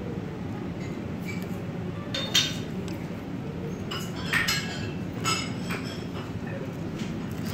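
Wooden chopsticks knocking and clinking against a ceramic rice bowl and dishes, a handful of short clicks with the loudest about two seconds in, over a steady low background hum.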